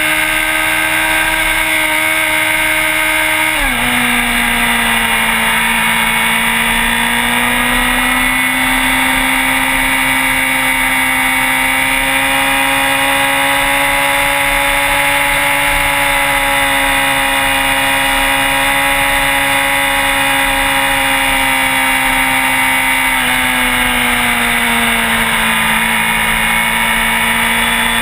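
Sport bike engine running steadily at high revs. Its pitch drops abruptly about four seconds in and sinks slowly again near the end, over a steady rushing noise.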